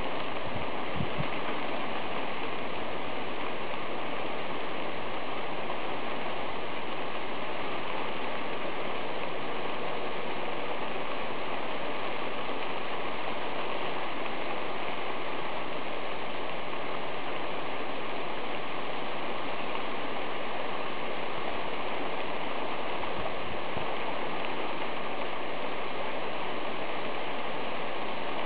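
Thunderstorm rain falling steadily in a dense, even hiss, with a couple of brief low thumps about a second in.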